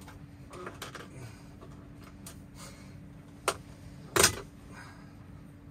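Dash trim bezel being pried off by hand: a few faint clicks, a sharp click about three and a half seconds in, then a loud snap a little after four seconds as the bezel comes free of its clips.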